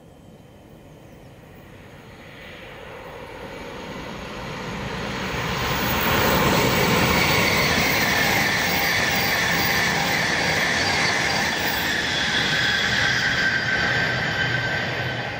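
High-speed passenger train approaching and passing at speed on an electrified main line. A rush of wheel and air noise swells over several seconds and stays loud for about eight seconds, with a steady high whine on top. It starts to fade near the end.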